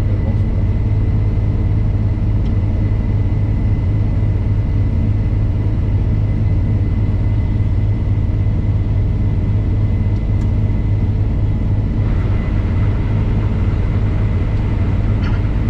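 Combine harvester running steadily: a loud, even low rumble with a constant thin high whine over it, and a little more higher-pitched noise joining about three-quarters of the way through.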